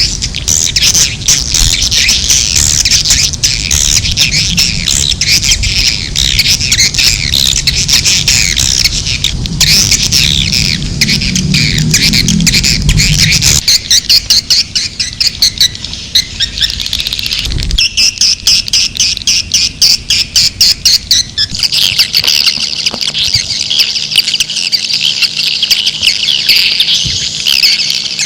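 Edible-nest swiftlets calling in a dense, continuous twittering chatter of many birds, a swiftlet-house lure recording. The chirping changes pattern about halfway through, turning to pulsing runs of chirps, then changes again near the end.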